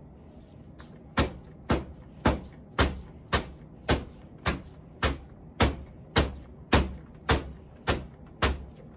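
Red plastic cup filled with wet concrete being tapped down on a tabletop, knocking steadily about twice a second from about a second in. The tapping brings trapped air bubbles up out of the wet concrete.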